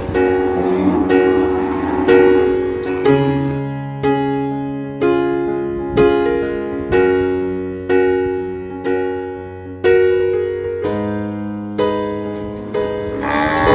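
Background piano music: slow chords and notes struck about once a second, each fading away.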